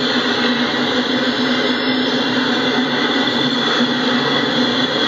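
Steady roar of a double-stack intermodal freight train's container well cars rolling past, the wheels running on the rails, cutting in abruptly at full level.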